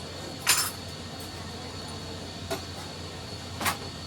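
Three sharp metallic clinks of metal parts or tools being handled on a workbench, the loudest about half a second in, over a steady background hum.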